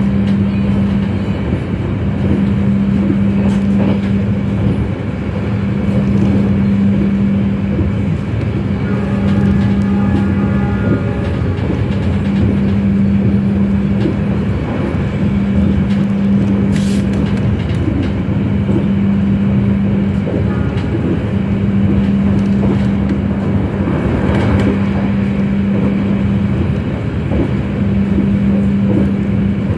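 Passenger train running at speed, heard from inside the carriage: a steady rumble with a droning hum that drops out briefly every two to three seconds.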